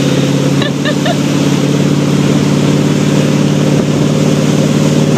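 Motorboat engine running steadily at towing speed, over the rush of its churning wake. A few brief high-pitched sounds come about a second in.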